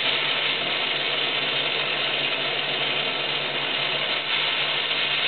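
Steady hiss and sputter of steam escaping from an overheating Bradford White hot water heater's plumbing, a sign of water far above safe temperature (over 100 degrees and climbing).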